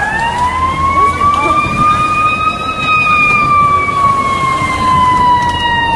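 Fire truck siren sounding one slow wail: the pitch climbs for about the first three seconds, then sinks slowly, over a low rumble.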